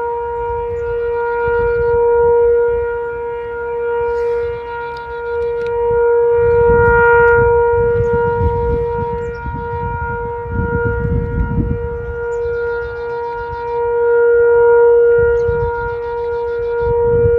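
Sentry 3V8-H outdoor tornado warning siren sounding a steady tone. Its pitch holds constant while its loudness swells and fades every four seconds or so.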